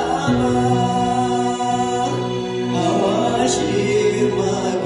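Live gospel song in the Kunama language: electronic keyboard chords with a man's singing voice over them through a microphone.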